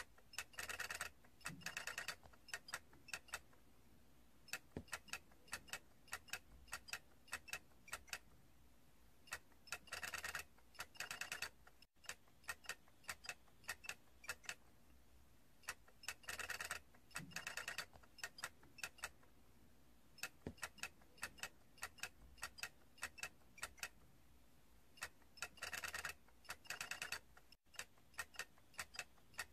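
A small plastic toy ticking and clicking lightly and irregularly. About every eight seconds, four times in all, it breaks into a denser run of rapid rattling clicks.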